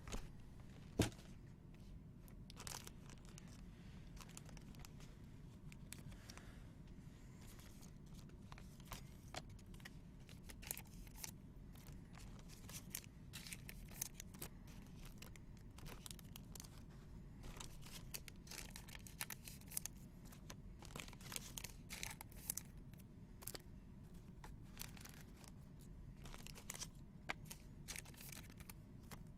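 Faint crinkling and tearing of trading-card pack wrappers, with scattered light clicks and rustles of cards being handled.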